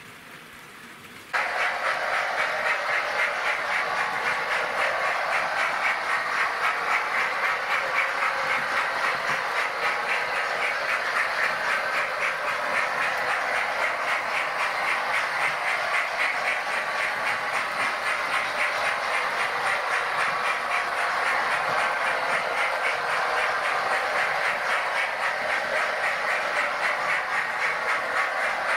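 Model railway trains running on the layout: a steady whirr of small wheels and motors on the track with fast, fine clicking, starting suddenly about a second in.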